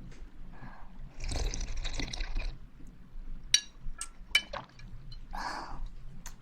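Liquid splashing close to the microphone for about a second, then a few sharp clicks and another short splash near the end.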